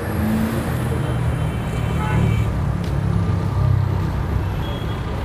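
A tractor's diesel engine running steadily, a low drone that swells slightly now and then.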